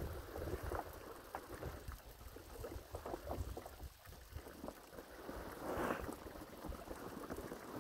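Large black plastic liner sheet rustling and crinkling as it is pulled and spread over the edge of a dug hole, louder for a moment about six seconds in, with wind rumbling on the microphone.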